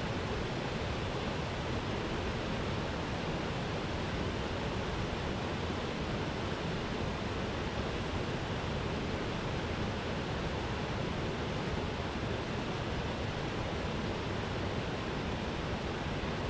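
Waterfall rushing steadily: an even noise of falling water with no breaks or changes.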